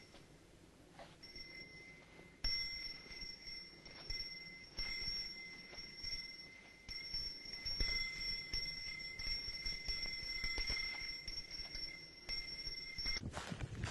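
Two steady high-pitched ringing tones, held together for about ten seconds, come in strongly about two and a half seconds in and cut off shortly before the end. Scattered low knocks and rumble sit underneath, and a louder noisy sound starts at the very end.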